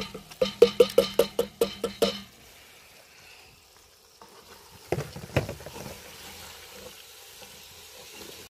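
A tin can of peeled tomatoes knocked rapidly against a cast iron pot, about five ringing knocks a second for the first two seconds, to work the stuck tomatoes out. Then a wooden spoon stirs the tomato and mince sauce in the pot, knocking twice against it about five seconds in.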